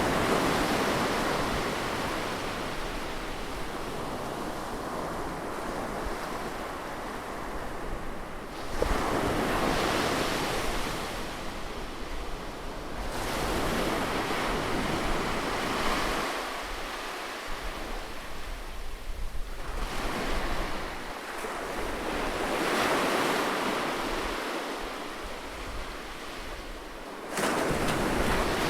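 Ocean surf breaking on a beach. The waves rush in and wash back in swells every few seconds, and one surge comes in suddenly near the end.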